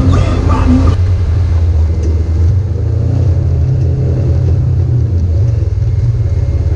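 Side-by-side UTV engine running steadily as it drives a rough dirt trail, a loud low drone heard from on board.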